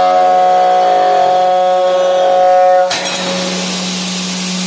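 CNC machining centre's spindle and end mill cutting an aluminium profile: a steady high-pitched cutting whine that changes abruptly about three seconds in to a rougher, hissing cut over a low steady hum.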